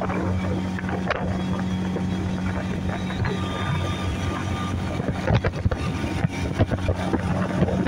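Boat outboard motor running at a steady speed, a constant low hum, with wind noise on the microphone.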